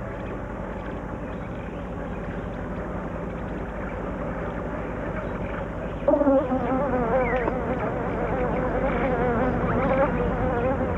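Mud-nesting wasp's wings buzzing. A faint steady hum gives way about six seconds in to a louder buzz whose pitch wavers up and down, as of the wasp in flight.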